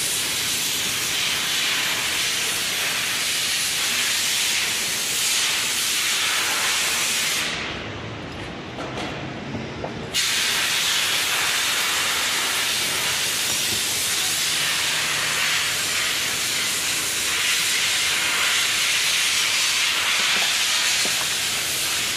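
Steady loud hiss. About eight seconds in it turns duller and quieter for a couple of seconds, then cuts back in abruptly.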